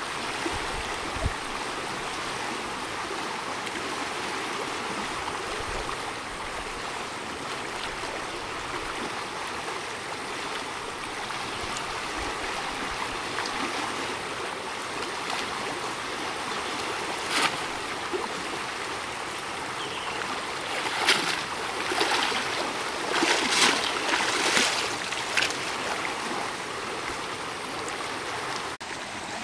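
Steady rushing of flowing stream water. In the second half, a handful of brief sharp noises break through, most of them clustered over a few seconds.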